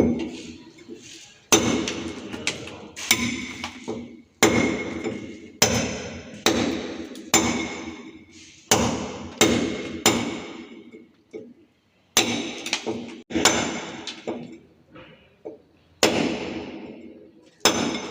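Hammer blows on metal, struck irregularly about once a second, each with a short metallic ring.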